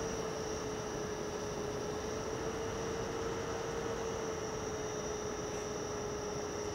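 Stock cooling fan of a TP-Link TL-SX1008 10-gigabit network switch running: a steady hum with one held mid-pitched tone, a faint high whine and a hiss. This fan noise is the switch's common complaint, which a quieter replacement fan is meant to cure.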